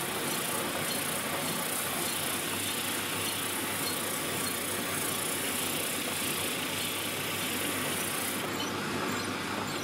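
Homemade drum sander running steadily: an electric drill motor spins a sanding drum while a pine board's edge is pressed against it, giving a constant motor hum with the rasp of abrasive on wood. The high hiss drops away near the end.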